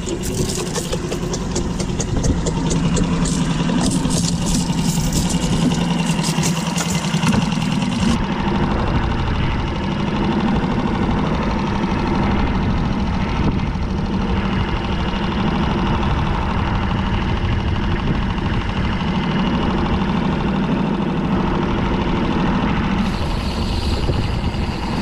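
Boat outboard motor running steadily at trolling speed, with a low, even hum. Crackling noise sits on top of it for about the first eight seconds.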